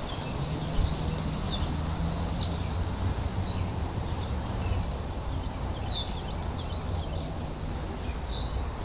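Birds chirping, with short high calls scattered throughout, over a steady low hum.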